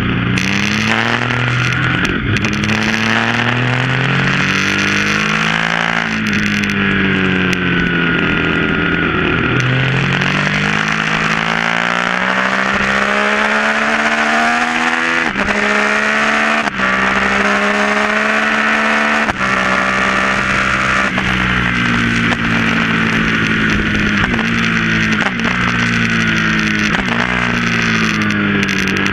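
Yamaha MT-09's inline-three engine through an SC-Project full exhaust, ridden hard: revs rising and falling through the bends, with three quick upshifts in a row around the middle where the pitch drops in sharp steps, then revs falling off near the end.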